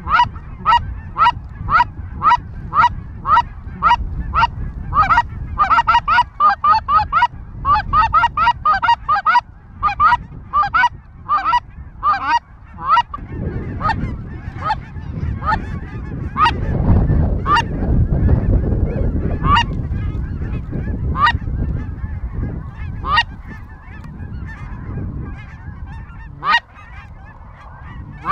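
A flock of geese honking overhead: calls come regularly at first, crowd together and overlap a few seconds in, then thin out to single honks every second or two. A low rumble swells underneath in the middle stretch.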